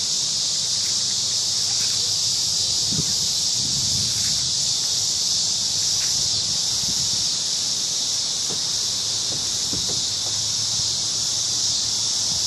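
A dense chorus of crickets singing, one steady high-pitched shrill with no breaks. Faint low rustles sound beneath it now and then.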